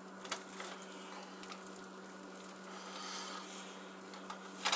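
Faint handling noises as hands roll a slice of meat around cheese on a ceramic plate, with a sharp click near the end, over a steady low hum.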